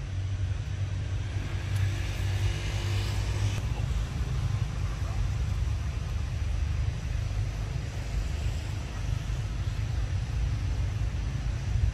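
Steady low rumble of outdoor background noise, with a brief higher hiss swelling between about two and four seconds in.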